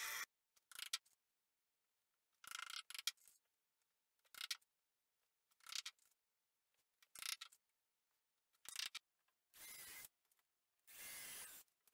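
Short bursts of workshop handling noise, then a Ryobi cordless drill running in two short steady bursts near the end, driving screws into the wooden bench frame.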